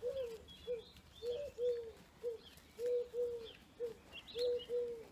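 A pigeon cooing in a repeated phrase of one short and two long low notes, about every one and a half seconds, with small birds chirping faintly higher up.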